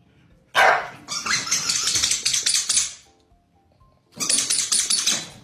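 Corgi barking in two runs of quick, rapid barks, the first starting about half a second in and the second near the end, over faint background music.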